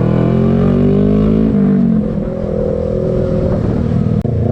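Suzuki GSX250R motorcycle's parallel-twin engine accelerating, its pitch rising steadily, then dropping suddenly about one and a half seconds in as it shifts up a gear and pulls on.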